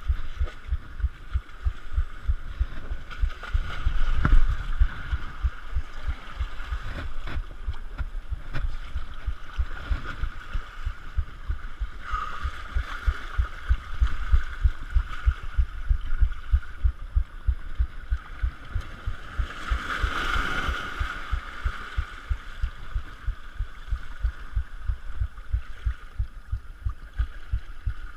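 Surf washing over jetty rocks, swelling now and then, under a steady low throbbing thump about three times a second.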